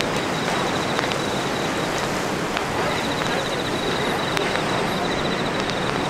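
Sea surf breaking on the shore: a steady wash of noise. A faint, rapid, high-pitched ticking joins in about halfway through.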